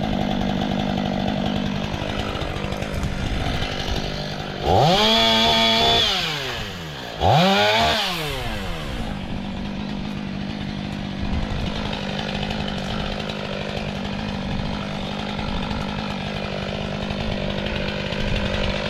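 STIHL MS 500i two-stroke chainsaw idling, revved up to full speed twice in quick succession about five and seven seconds in, each time dropping back to idle.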